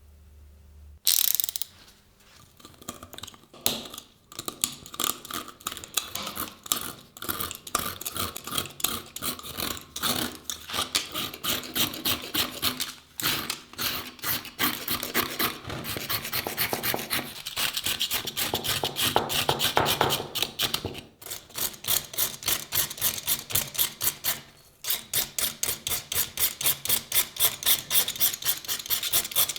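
Rapid back-and-forth scraping strokes of a hand abrasive or scraping tool worked over a rusty steel knife blade to take off the rust. The strokes start about a second in, pause briefly twice, and quicken to about five a second near the end.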